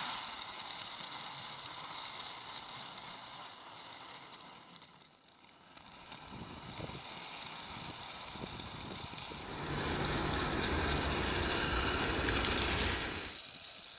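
Garden-scale model train running along its track, a steady rattling hiss of wheels on rail, quieter for a moment near the middle and louder with a low rumble for a few seconds before the end.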